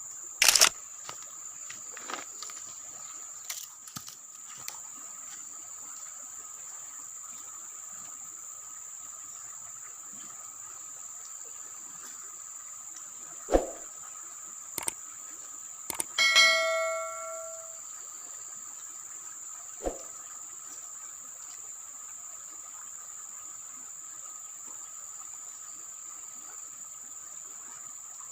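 Steady high-pitched drone of insects, with a second steady lower buzz underneath. A few sharp clicks, and a short ringing tone about halfway through.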